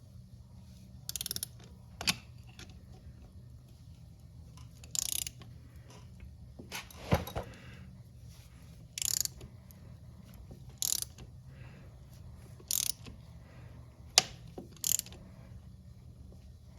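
Ratchet wrench clicking in short bursts about every two seconds, with a few single sharp metallic clicks between them, as it turns the screw of a chain rivet tool to flare the master-link rivets of a 525 motorcycle chain.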